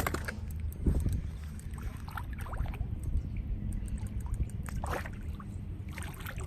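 Water sloshing and splashing as a big hooked fish thrashes at the water's edge, with a few sharp splashes or knocks over a steady low wind rumble on the microphone.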